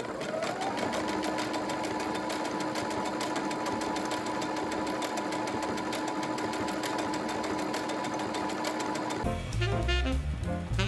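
Brother CS7205 electric sewing machine stitching a seam through duck canvas and broadcloth. The motor spins up over the first second, then runs at a steady speed with the needle clattering rapidly. It cuts off suddenly about nine seconds in, when music starts.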